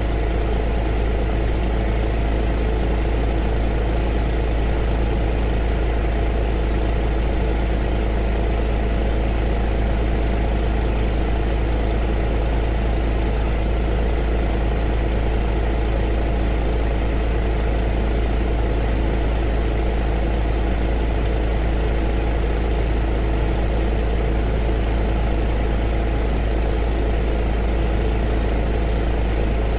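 Heater running steadily: an unchanging noise over a strong low hum, with a few steady tones in it.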